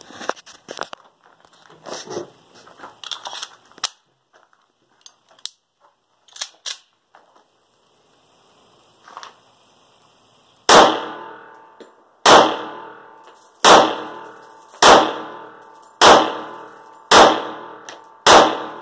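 Scattered faint clicks and rustling, then a Ruger SR1911 Lightweight Commander .45 ACP pistol fired seven times in slow, steady succession, about one shot every 1.2 seconds, each shot with a short echoing tail.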